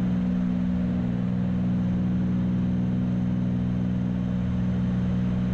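Twin piston engines of a Cessna 310 droning steadily at climb power, heard inside the cockpit.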